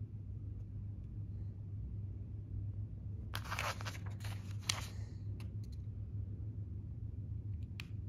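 A page of a paper instruction booklet being turned: a rustle of paper a little over three seconds in, lasting under two seconds, then a few light ticks. A steady low hum runs underneath.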